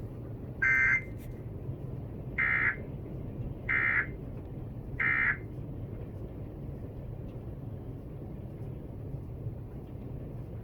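Emergency Alert System end-of-message data bursts: four short, shrill digital squawks in the first five and a half seconds, the last three evenly spaced about 1.3 s apart, signalling the end of the alert. A steady low rumble runs underneath.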